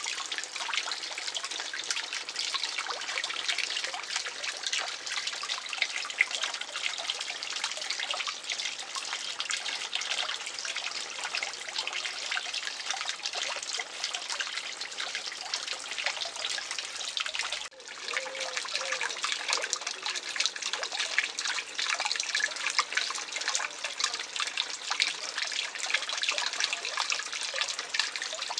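Small pond fountain spout splashing steadily back onto the water surface, a continuous dense trickle and spatter of drops. It cuts out for an instant about two-thirds of the way through, then carries on.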